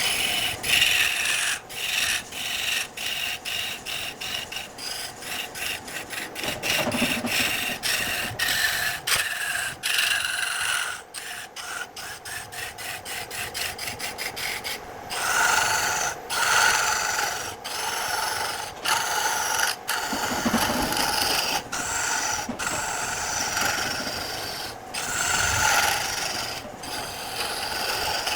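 Hand tool rasping or scraping wood in quick repeated back-and-forth strokes, several a second, with brief pauses between runs.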